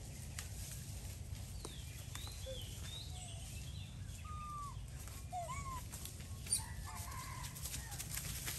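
Scattered short chirping animal calls, each a quick up-and-down glide, over a steady low rumble and a few light clicks.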